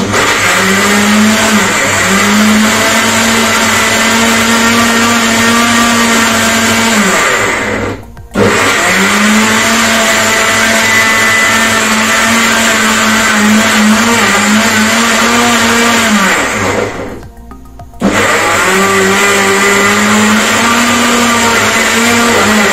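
Kenwood 8500W countertop blender motor running at high speed, crushing oranges. It is switched on abruptly and run three times in succession. The first two runs each last about seven to eight seconds, and each ends with the motor's pitch falling as it winds down to a stop. The third run is still going at the end.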